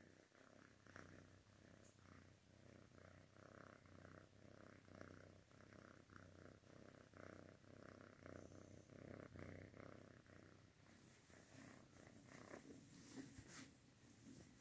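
Domestic cat purring faintly in an even rhythm of breaths, lying relaxed close to the microphone. Near the end a few soft rustles as a hand moves over the cat and bedding.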